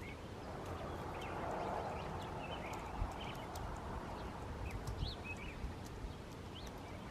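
Quiet outdoor ambience with scattered faint bird-like chirps and a few light clicks.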